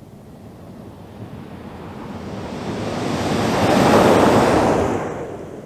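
A 2022 Toyota Tundra pickup driving past at speed on a dirt course. Its rushing noise swells to a peak about four seconds in and then fades as it moves away.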